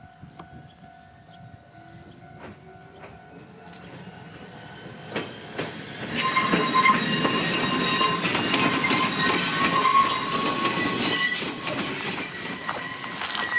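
Ichibata Electric Railway 2100-series electric train approaching and passing close by, growing much louder about six seconds in, with clicks of the wheels over rail joints and steady high-pitched tones riding over its rumble.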